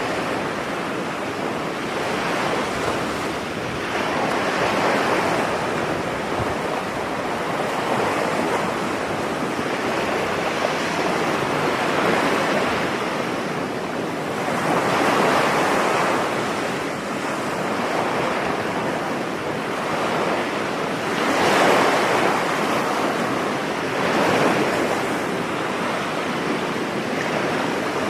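Ocean surf on a beach: a continuous wash of waves, swelling as a wave breaks every few seconds, the strongest swells in the second half.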